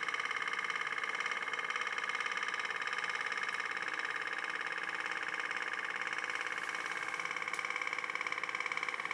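Candle-heated pop-pop (putt-putt) toy boat running, its little boiler making a rapid, steady putt-putt buzz as it drives the boat through the water.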